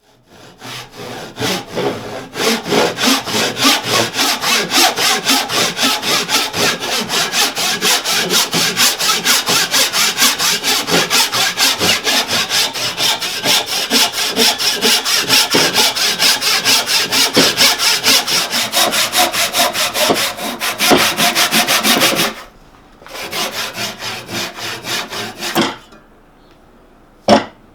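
Hand saw cutting through wood with quick, even back-and-forth strokes, about three a second. The sawing stops about 22 seconds in, a few more strokes follow after a short pause, and a brief sharp sound comes near the end.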